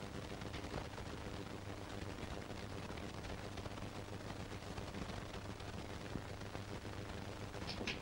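Steady hiss and a low hum from an old 1940s film soundtrack, with a few faint crackling clicks.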